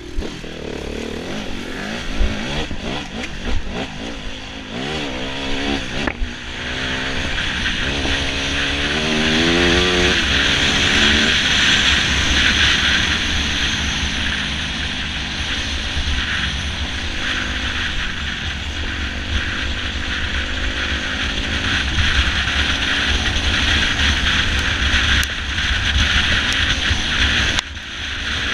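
Enduro motorcycle engine being ridden hard: its pitch rises several times between about four and eleven seconds in as it revs up, then it runs on under a loud, steady rush of noise.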